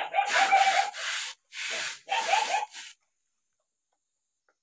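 Metal food bowls scraping and rubbing on gritty concrete as dogs eat from them, in four or five rasping bursts over about three seconds, then it stops.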